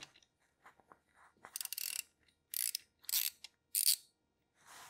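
Socket ratchet clicking in four short bursts as it is swung back and forth on a 17 mm engine sump plug, loosening the plug to drain the oil.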